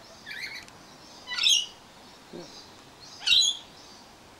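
Rainbow lorikeets screeching: two loud, short, shrill calls about two seconds apart, with a fainter call just after the start.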